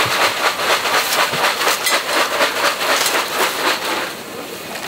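Cockle shells clattering together in a fast, steady rhythm of many knocks a second, stopping about four seconds in.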